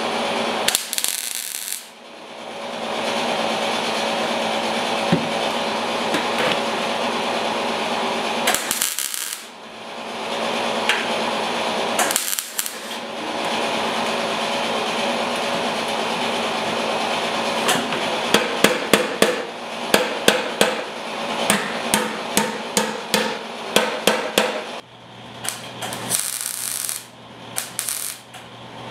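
MIG welder tacking and stitch-welding a steel patch onto a motorcycle fuel tank. Through roughly the last ten seconds it crackles in short, sharp bursts with brief gaps. Before that a steady hiss and hum runs, broken off briefly three times.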